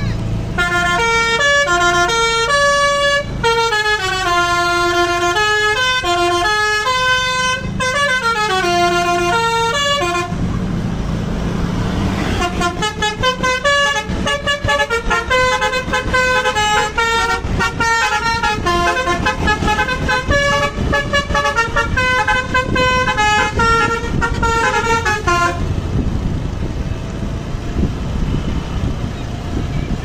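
Bus telolet: a Basuri multi-tone air horn on a coach playing two tunes of quick stepped notes. The first runs through the first ten seconds and the second from about twelve to twenty-five seconds, with the engine and road noise of passing vehicles underneath and after.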